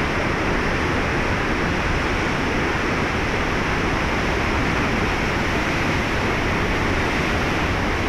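Swollen, silt-laden mountain river in spate rushing through rocky rapids: a loud, steady roar of whitewater with no let-up.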